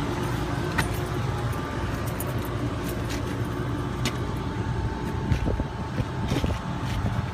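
Refrigeration rack's scroll compressors running with a steady low hum and a faint steady tone while the rack is being pumped down. A few light clicks sound over it.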